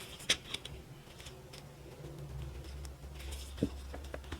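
Resin cat-paw pieces and silicone molds being handled during demolding: a sharp click soon after the start, a few soft ticks, and a duller knock near the end, over a faint steady hum.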